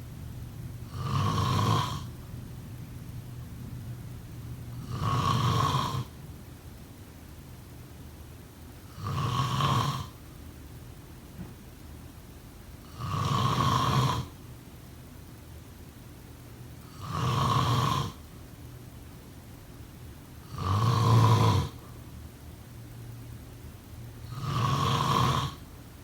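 A person snoring: seven snores at an even pace, about one every four seconds, each lasting about a second, with quiet breathing between them.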